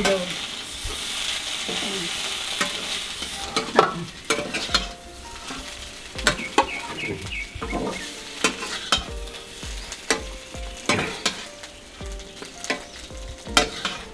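Cauliflower frying in a pan, sizzling, while being stirred with repeated sharp scraping and clicking strokes against the pan. The sizzle is strongest in the first few seconds; after that the stirring strokes stand out.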